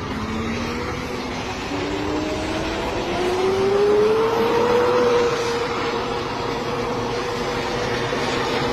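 Military helicopter's turbine engine whining as it winds up: the whine rises in pitch over the first five seconds, then holds steady over a broad rumble.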